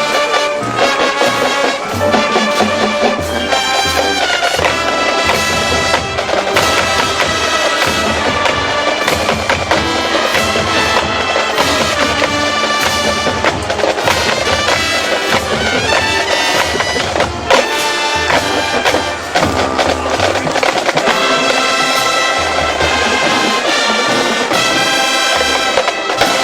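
Marching band playing: brass and woodwinds sounding sustained chords over drumline percussion with frequent sharp hits.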